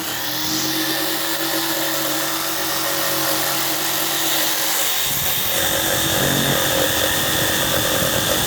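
Electric jigsaw running steadily with a continuous motor whine, the blade cutting wood; the sound changes about five seconds in.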